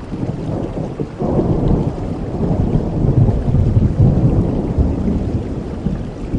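Steady rain with a long roll of thunder: a deep rumble that swells about a second in and keeps rolling.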